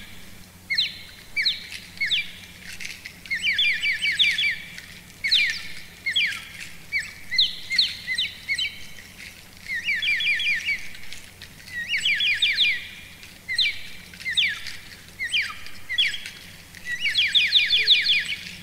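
Bird-like chirping: short runs of rapid, high chirps repeated about once a second, over a faint steady low hum.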